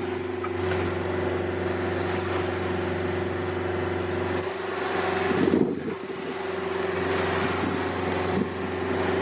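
Sailboat's engine running steadily under way, a constant drone, with wind and water rushing past the hull. The noise swells briefly a little past halfway.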